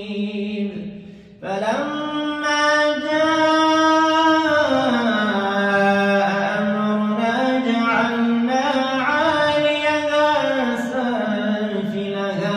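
A man's voice chanting Quran recitation in the melodic tajwid style. After a short pause about a second in, one long drawn-out phrase follows, its pitch slowly rising and falling.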